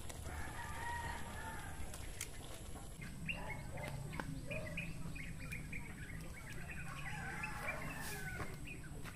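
Faint bird calls: one longer call near the start, then many short calls and chirps.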